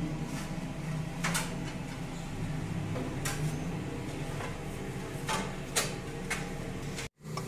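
Tomato pizza sauce simmering in an aluminium pot on a gas stove: a few soft pops and clicks from the surface, over a steady low hum. The sound cuts out for an instant near the end.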